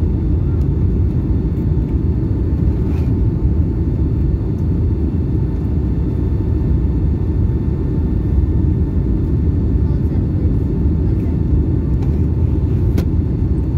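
Steady in-cabin noise of a Boeing 757-200 on descent: a dense, low rumble of engines and airflow over the fuselage, with faint steady high whine tones.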